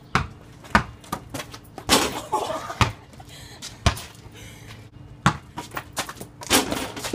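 A basketball bouncing on hard ground during a backyard game, making several sharp, unevenly spaced thuds. There are two louder, rougher clatters, one about two seconds in and one near the end, just after a shot.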